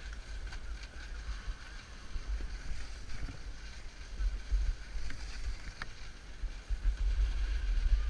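Wind buffeting a helmet-mounted action camera while a snowboard slides over packed snow: a low rumble under a steady hiss, getting louder near the end.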